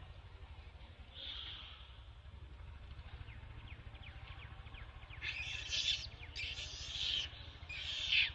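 Newborn macaque crying: one short, high-pitched squeal about a second in, then three louder squeals in quick succession over the last three seconds.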